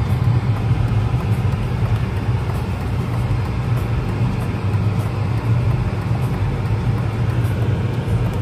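A BMW car's engine and road noise heard from inside the cabin while driving, a steady low hum.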